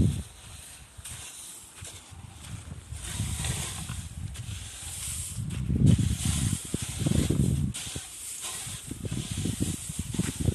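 Outdoor wind gusting on the microphone, with a rustling hiss that rises and falls unevenly.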